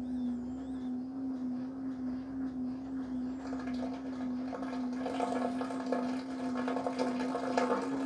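LG front-load washing machine filling at the start of a cycle: water rushing and splashing into the drum over a steady machine hum. The splashing grows louder about halfway through.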